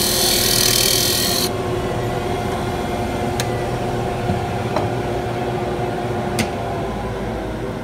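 Mini lathe running with a bright rasping hiss of the spinning wood bangle being worked, which stops about a second and a half in. The lathe's motor hum then runs on alone, with three light ticks.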